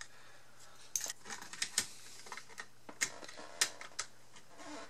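Irregular light clicks and taps of plastic and metal parts being handled, starting about a second in, as a stand mixer's circuit board and wiring are fitted back against its motor.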